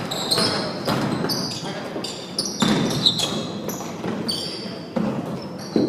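Basketball being dribbled on a gym floor, its bounces coming irregularly every half second to a second.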